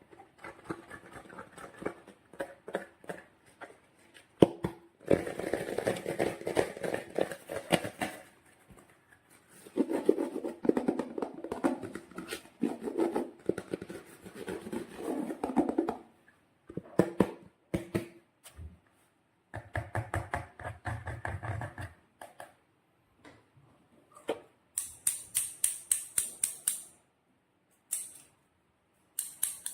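Slime being worked by hand: sticky, wet crackles and small clicks in irregular stretches that stop and start, with a run of quick high clicks near the end.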